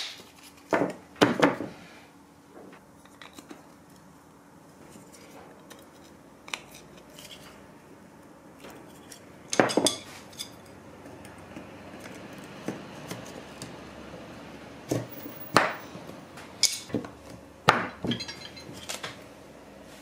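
Hard plastic brackets and rods of a model yacht display stand clicking and clattering as they are slotted together and set down on a table: a couple of sharp knocks at the start, one near the middle, and a run of them near the end, with quieter gaps between.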